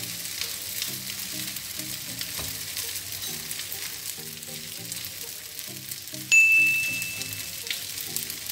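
Dry mee siam noodles sizzling in a frying pan over a gas flame as calamansi juice is squeezed over them, with soft background music. About six seconds in, a single bright ding rings out and fades over about a second.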